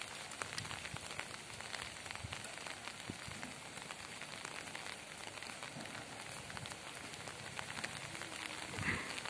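Light rain falling: a steady hiss dotted with many fine drop ticks, with a soft thump near the end.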